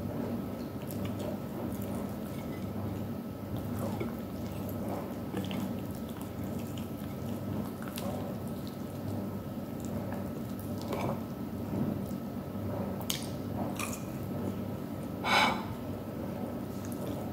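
Close-up eating sounds: soft chewing, lip smacks and small wet clicks while grilled chicken wings are eaten by hand, with one louder short smack about fifteen seconds in. A steady low hum runs underneath.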